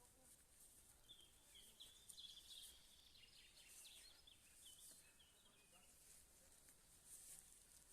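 Faint birdsong: small songbirds giving many short chirps and quick trills, over a faint high hiss.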